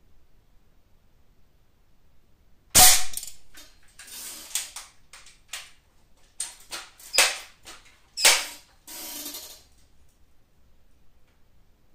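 Crosman M4-177 multi-pump air rifle firing once about three seconds in, a single sharp crack. A run of mechanical clicks, clacks and short pumping strokes follows as the rifle is pumped and reloaded for the next shot.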